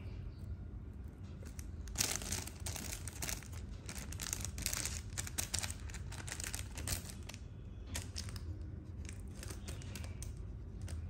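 Crinkling and rustling of something being handled. It comes in dense crackles from about two seconds in, then grows sparser near the end.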